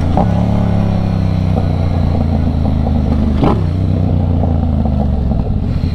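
Motorcycle engine running steadily while riding, its pitch easing down slightly in the first second, with one short knock about halfway through.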